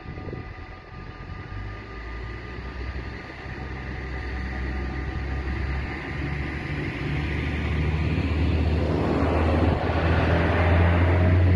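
DB Regio Talent diesel multiple unit approaching and passing over a level crossing: its diesel engine hum grows steadily louder, and a rushing wheel-on-rail noise joins about nine seconds in as the train reaches the crossing. Faint steady ringing from the crossing bells is heard at the start and fades within the first few seconds.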